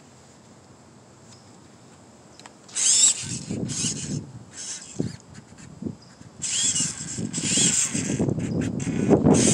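RC scale crawler driving on asphalt: its electric motor and gears whine, rising and falling in bursts as the throttle is worked, over the rumble of its tyres rolling on the pavement. It starts about three seconds in and is loudest near the end as the truck comes close.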